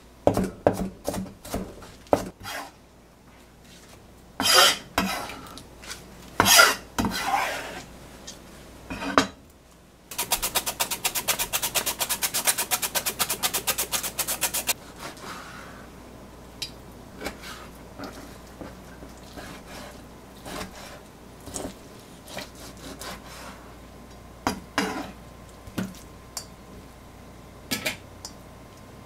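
Kitchen knife chopping leafy greens on a plastic cutting board: scattered knocks and scrapes. About ten seconds in, a carrot is sliced on a hand slicer for about five seconds, a fast, even rasping rhythm, followed by lighter clicks and handling of bowl and board.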